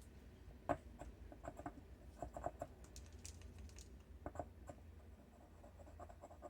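Scattered light clicks and taps in small clusters as a marker is handled and dabbed into a small necklace bezel. The sharpest click comes just under a second in. A faint low hum runs underneath.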